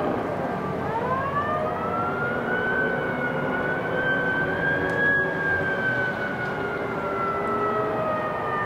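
Emergency vehicle sirens wailing. The main siren dips low right at the start, rises over about a second to a high pitch, holds there for several seconds and slowly falls toward the end. A second, lower siren glides beneath it.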